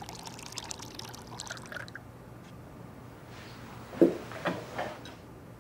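Milk pouring from a can into a glass for about two seconds, then, about four seconds in, a few light knocks as a plate is set down on a table.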